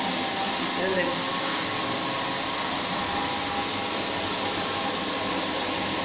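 Single-disc rotary floor scrubber running steadily, its motor turning the pad over a stone floor.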